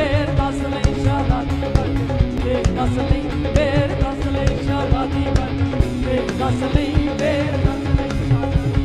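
Live band backing a Punjabi Sufi song: electric guitar and drum kit keeping a steady beat, with held melodic lines above.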